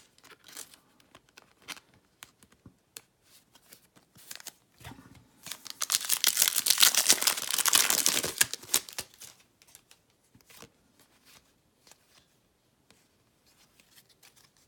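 A baseball card pack's foil wrapper being torn open and crinkled: a loud crackling rip of about three seconds midway, with light clicks of cards being handled before and after.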